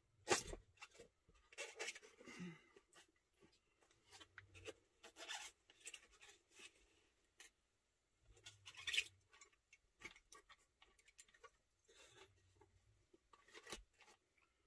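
Faint handling of a cardboard box and its packaging: soft rustling and scraping with scattered small clicks, the loudest just after the start and about nine seconds in.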